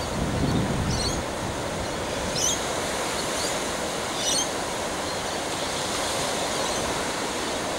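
Ocean surf washing and breaking in a steady wash of noise, with a low rumble in the first second and a few short high chirps in the first half.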